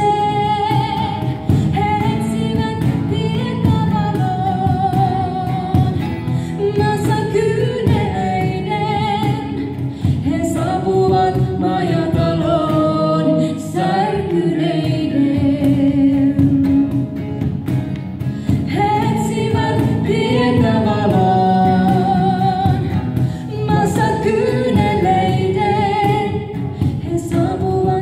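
Live acoustic worship song in Finnish: a woman singing lead with a man's voice alongside, over strummed acoustic guitar and a steady cajon beat.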